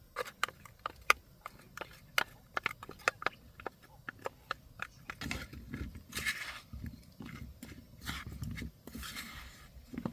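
Irregular light clicks and taps, a few a second, with two brief bursts of rustling, about six seconds in and near the end, as of small objects being handled.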